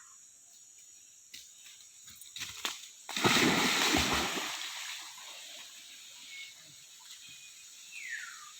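A splash in water about three seconds in, loud and fading out over a second or two, preceded by a few light knocks. A short falling whistle-like tone sounds near the end.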